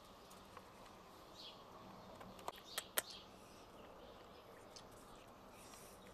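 Quiet background with a few faint, short high chirps and three sharp clicks about halfway through.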